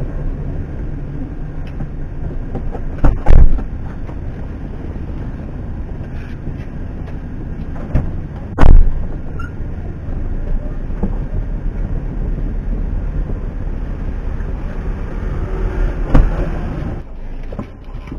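Steady low hum of a stopped car with its engine running, heard from inside the cabin. It is broken by a few heavy thumps, about three seconds in, around eight to nine seconds and again near the end: doors and the rear hatch shutting as boxes are unloaded.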